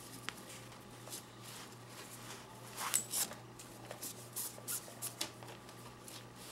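Soft rustling and scraping of nylon paracord being handled, looped and pulled tight while tying cobra stitches, with a few louder rubs about three to five seconds in. A steady low hum runs underneath.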